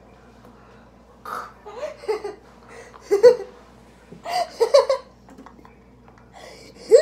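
Girls laughing in several short bursts with quiet gaps between them, the loudest about three and four and a half seconds in.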